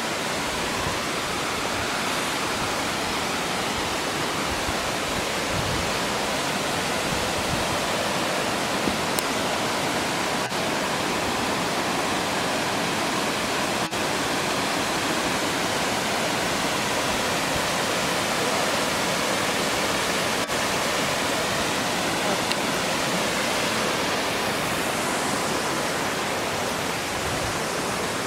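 Cascading waterfall rushing steadily, a continuous even roar of falling water.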